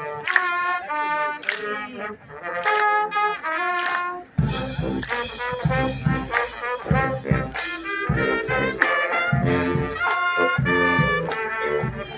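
Live brass band playing, trumpets and trombones carrying a bright melody. About four seconds in, low bass notes and a steady beat join in under the horns.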